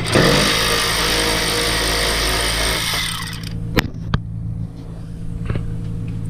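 Power ratchet running for about three seconds as it backs out a 10 mm grill bolt, then stopping. Two sharp clicks follow about a second later.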